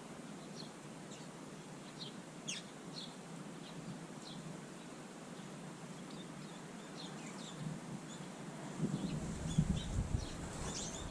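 Small birds giving short, faint, high chirps, scattered throughout, with a few low bumps and rustles near the end.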